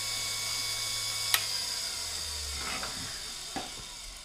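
TDR 82B drill grinder's motor and wheel running with a steady hum and high whine, fading gradually as it winds down. A sharp metallic click about a second and a half in, and a couple of faint knocks as the drill-holding fixture is handled.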